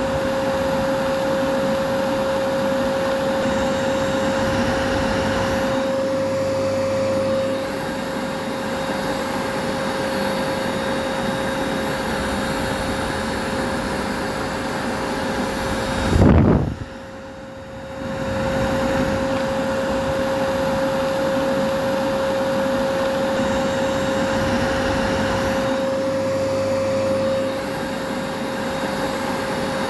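Vacuum cleaner motor running steadily: a dense rushing noise with a steady whine on top. About 16 seconds in comes a brief low thump, then the sound drops away for about a second and a half before the running resumes.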